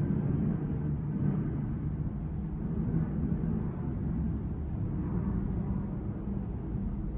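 Seabreeze ceiling fan with rattan blades running steadily, a low, even hum from the motor and the moving air.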